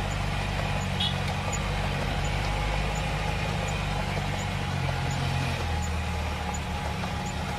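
Off-road vehicle's engine heard from inside the cab, running steadily at low speed. Its note drops lower about five and a half seconds in as the driver eases off. A faint high tick repeats about every two-thirds of a second.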